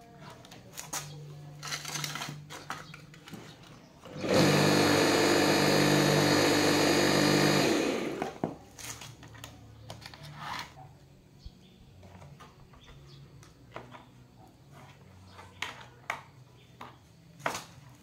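Small electric motor of a mini car-wash pressure washer switched on and running steadily for about three and a half seconds, then cutting off. Before and after it, scattered light clicks and handling knocks.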